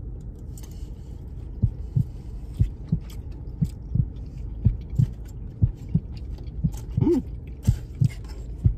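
Close-range chewing of a mouthful of pasta salad: soft low thumps about twice a second, with a brief hummed 'mm' about seven seconds in.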